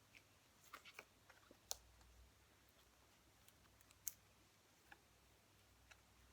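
Near silence: room tone with about a dozen faint, irregular clicks, the two sharpest a little under two seconds in and about four seconds in.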